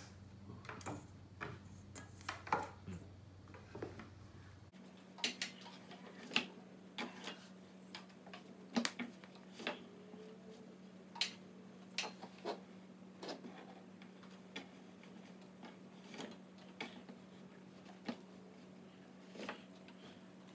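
Cut hot dog pieces dropping into a stainless steel bowl, making irregular light clinks and taps, with a faint steady hum underneath.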